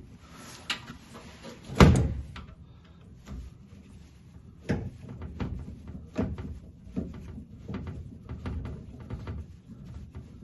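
Irregular knocks, clicks and clanks of hand tools and loose parts against the steel shell of a 1967 Mustang door as the vent window hardware is worked loose, with a short scraping just before the loudest knock about two seconds in.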